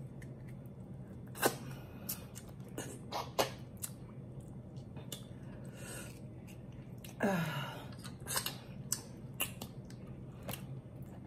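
Close-up lobster eating: irregular sharp cracks and clicks of lobster shell being pulled apart and sucked on, about eight in all, with a longer sucking sound about seven seconds in, over a low steady hum.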